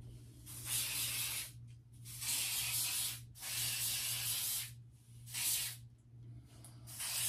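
Aerosol can of anti-breakage hair sheen spray hissing in short bursts of about a second each, about five in all, as it is sprayed down the hair.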